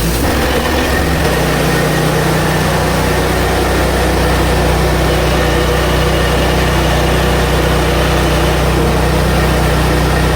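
Hud-son HFE30 portable bandsaw mill's gas engine running steadily, its note shifting about a second in and then holding.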